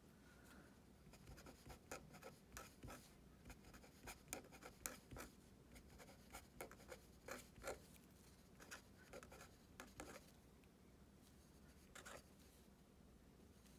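Faint scratching of a pen writing on a paper worksheet, in many short, quick strokes. It falls mostly quiet for the last few seconds, apart from one brief stroke.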